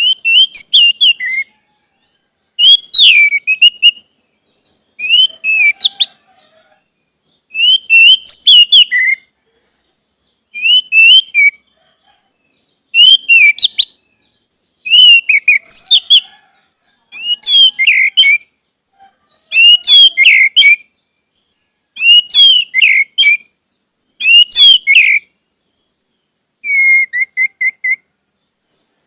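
Orange-headed thrush singing: short, varied whistled phrases with quick rises and falls in pitch, one about every two seconds with brief silent pauses between. Near the end comes a lower, flatter run of repeated notes.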